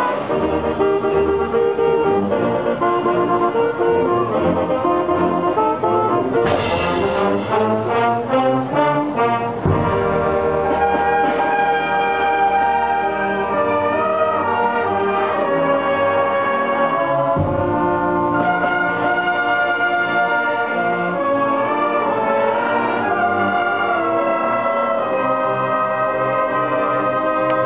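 Brass band playing a piece: brass and woodwinds in full ensemble, with a run of short, repeated chords a few seconds in, then longer held, flowing melodic lines.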